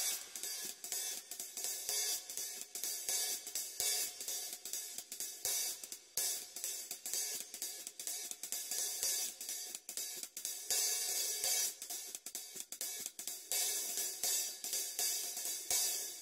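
Drum kit played in a fast, busy rhythm carried mostly on hi-hat and cymbals, with little bass drum.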